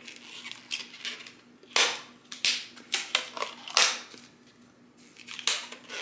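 Latex balloon being stretched and pulled down over a foam die by hand, giving several short, sharp rubbery snaps and handling noises at irregular intervals.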